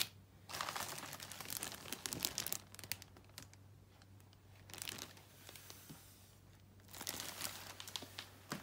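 Plastic packaging bags crinkling as they are handled, in three spells of crackling with short pauses between.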